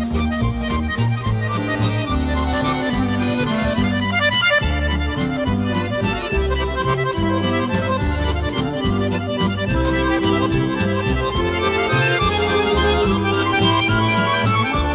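Instrumental background music: a lively melody over a steady, rhythmic bass line.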